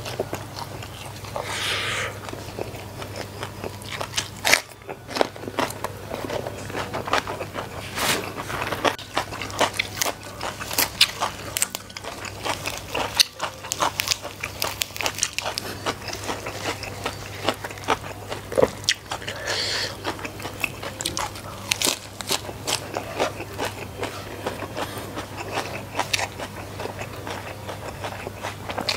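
A man chewing and biting food close to the microphone: rice with chili sambal and raw lettuce and cucumber, with many sharp crunches and wet mouth sounds throughout. A low steady hum sits underneath.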